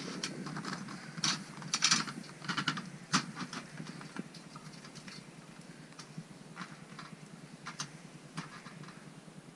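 Crampon points clicking and scraping on the aluminium rungs of a ladder bridging a crevasse as a climber steps across. The clicks come thick in the first three seconds, then scattered.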